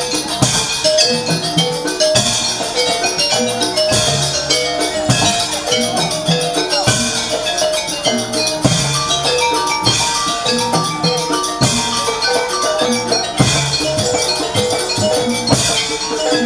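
Jaranan ensemble music playing for a dance: heavy drum strokes every second or two under repeating ringing notes from tuned metal percussion, with a held higher note for a few seconds in the middle.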